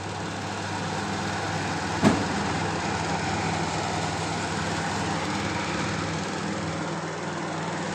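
Crompton air cooler's blower motor and fan running steadily: a low hum under a rush of air, building up over the first second or so. It runs without the earlier noise from the broken blower bush, now mended with a makeshift repair. One sharp click about two seconds in.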